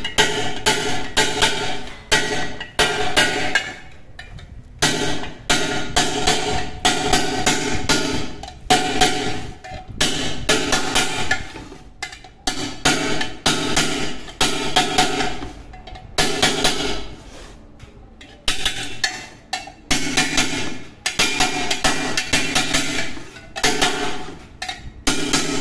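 Rapid metal blows on a swollen pressure cooker, about three to four a second in runs with short pauses, the pot body ringing after each strike as the bulge is knocked back down.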